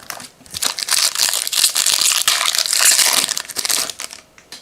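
Plastic trading-card pack wrapper crinkling as it is handled and opened: dense crinkling for about three seconds that dies away near the end.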